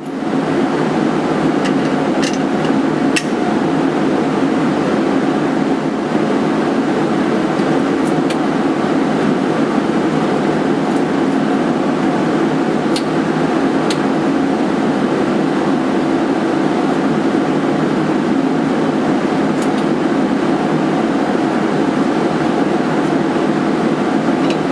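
Steady machine noise of a CNC machine tool running, with a few sharp clicks now and then.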